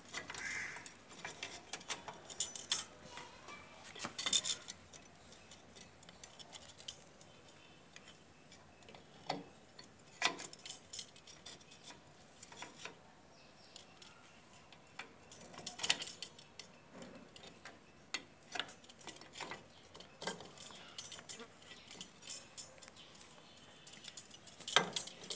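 Irregular metallic clicks and clinks of drum-brake shoes and return springs being handled and fitted onto a Bajaj three-wheeler's rear brake backplate, with a few sharper knocks among them.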